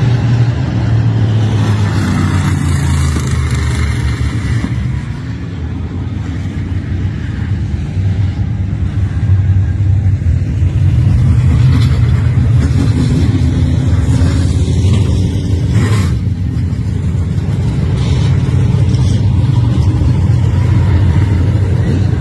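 Race car engine running hard, its pitch rising and falling; it eases off about a quarter of the way through, then builds again.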